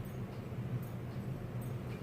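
A person chewing food with the mouth close to the microphone, small clicks coming evenly a little more than once a second, over a steady low hum.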